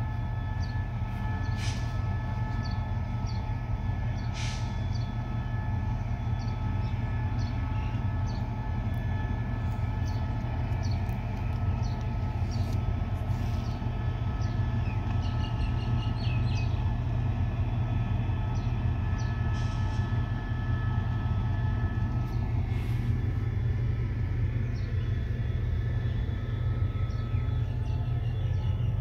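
Diesel freight locomotive idling at the head of a standing train of tank wagons: a steady low engine hum with several steady whining tones over it and occasional short clicks.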